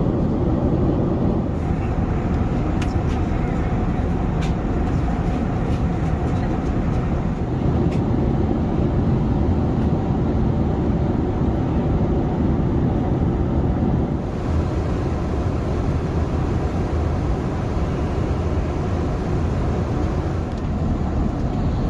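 Airbus A380 cabin noise in cruise flight: a steady, dense rumble of engine and airflow noise, with a few faint ticks in the first half.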